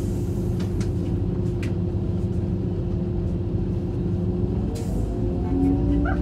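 Train running, heard from inside a passenger coach: a steady low rumble and hum with a few short clicks of the wheels. Near the end a rising whine sets in and the drone grows louder as the train's drive picks up.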